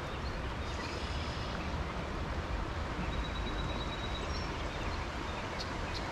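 Steady rush of stream water running over a riffle, an even noise with a low rumble underneath.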